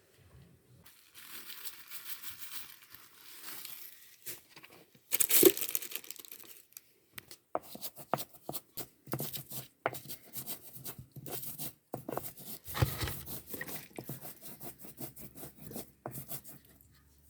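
Tearing and crumpling handling sounds, with one sharp rip about five seconds in, followed by a long run of short crackles and rustles.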